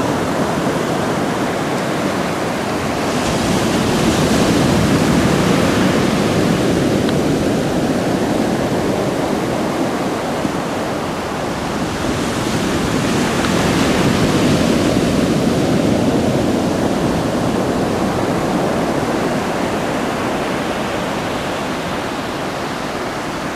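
Ocean surf breaking and washing up a beach, a steady rushing wash that swells louder twice, about four and thirteen seconds in.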